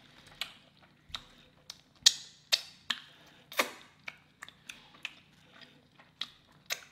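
Close-miked eating sounds: chewing with irregular sharp, wet mouth clicks and smacks, the loudest a few in the middle.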